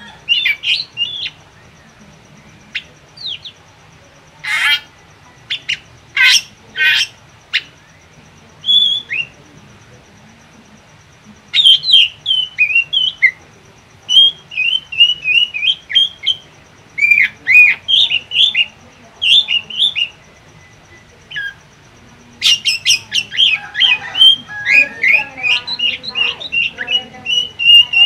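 Caged drongo calling loudly in phrases of quick, sharp chirping notes mixed with harsh squawks. There is a pause of a few seconds before a long run of rapid notes, and the song grows busiest near the end.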